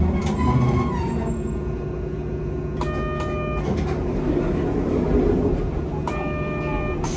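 Hankai Tramway car running along the track, heard from inside the car: a steady low rumble of wheels and motor with a constant hum, and two short ringing tones about three seconds apart.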